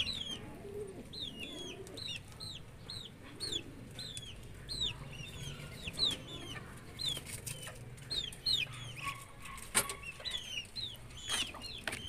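A steady run of short, high chirps or peeps from small birds, two or three a second, with a few faint low pigeon coos early on. There is a single sharp click about ten seconds in.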